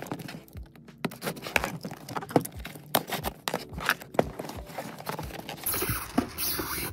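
A cardboard shipping box being opened by hand: irregular taps, knocks and scrapes of cardboard being handled and its flaps pulled, with a longer rustle near the end.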